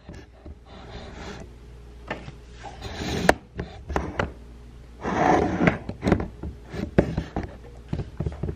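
Cardboard shipping box and plastic-wrapped contents being handled: scattered knocks and clicks, and a louder rustling scrape about five seconds in.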